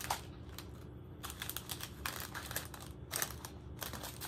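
Small plastic drill bags on a packaging strip crinkling and rustling as they are handled and sorted, in several short spells of crackly clicks.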